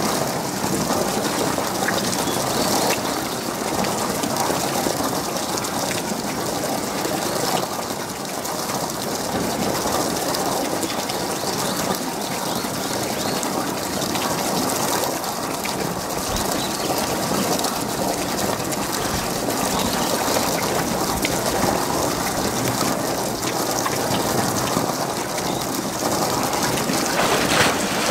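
Steady rush of running water, with a splash near the end as a polar bear dives into the pool.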